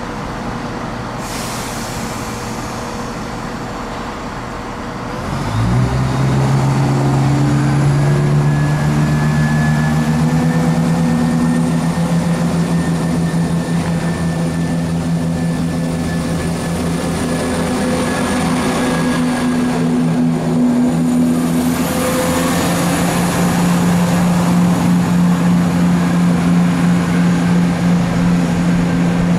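A train's diesel engine opening up: after a short hiss about a second in, it jumps to a loud, steady low note about five seconds in and keeps running under power.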